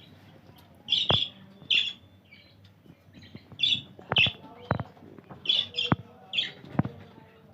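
Birds giving short, harsh squawking calls and chirps, about ten in a few seconds, with sharp taps or clicks among them.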